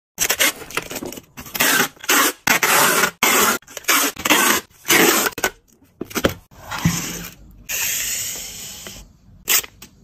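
Packing tape being ripped off a roll in a run of quick, loud rasping pulls and torn on a dispenser's serrated cutter, sealing a box. A longer, slowly fading pull comes about two-thirds of the way through, and one last short rip near the end.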